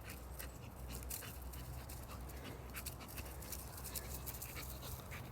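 Labrador panting, with scattered light clicks over a low steady hum.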